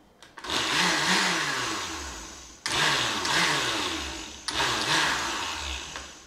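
Countertop blender running in three pulses, each starting sharply and fading, as it purées a thick load of avocado with garlic, chili and sour cream into guacamole.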